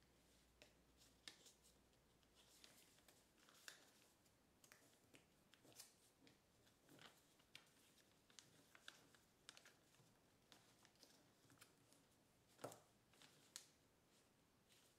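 Faint crinkling and crackling of kraft paper being creased and folded by hand, in irregular small clicks, with two sharper crackles near the end.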